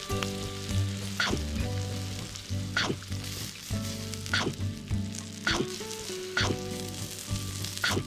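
Steak sizzling in a hot skillet over a wood fire, with sharp clicks about every second and a half and soft background music under it.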